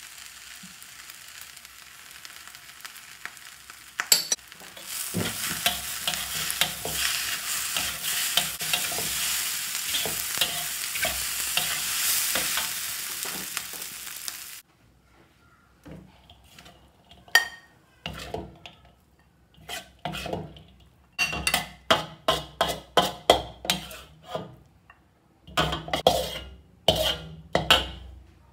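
Fried rice sizzling in a wok while a metal spatula stirs and tosses it. The sizzle gets loud about five seconds in, then cuts off suddenly about halfway through. A run of sharp metal scrapes and knocks of the spatula against the wok follows as the rice is scooped out.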